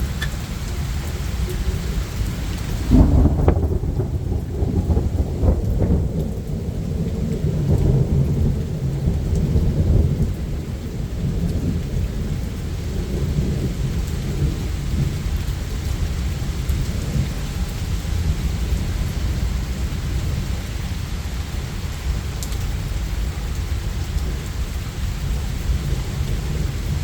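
Steady rain falling, with a clap of thunder about three seconds in that rumbles on, swelling again, for several seconds before fading back under the rain.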